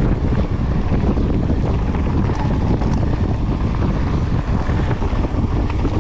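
Wind buffeting a camera microphone on a fast mountain-bike descent, over a steady rumble and rattle of tyres and bike on a dirt trail.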